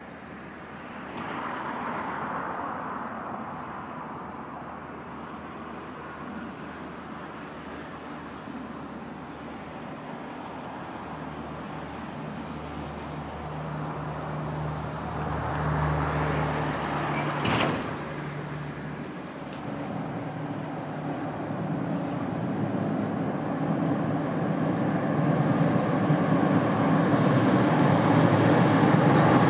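Container freight train hauled by a JR Freight EF66 electric locomotive approaching across a long steel girder bridge: a rumble that builds steadily through the last ten seconds. Around the middle a low engine hum swells and fades, with one sharp click just after it.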